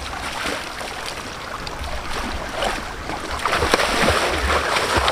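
Water splashing and lapping, getting louder about three seconds in, with wind rumbling on the microphone.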